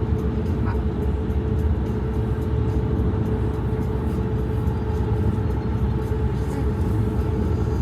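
Road and engine noise inside a moving car's cabin at highway speed: a steady low rumble with a faint constant hum above it.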